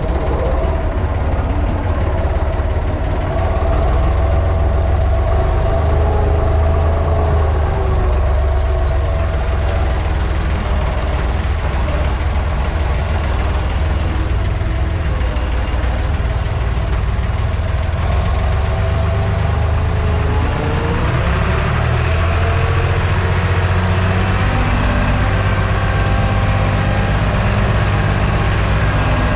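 Farm tractor's diesel engine running steadily while pulling a disc harrow, heard from inside the cab. The engine note shifts about two-thirds of the way through.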